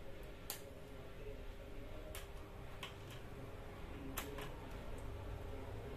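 About five light clicks as a screwdriver works the screw terminals of a 12 V 10 A switching power supply, over a faint steady hum.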